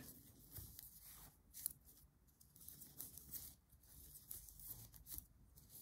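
Faint, irregular scratching and light ticks of metal knitting needles and yarn as stitches are worked by hand.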